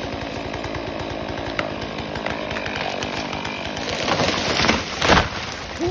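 Chainsaw engine running at a steady buzz, revving up louder about four seconds in, with a sharp burst near the end.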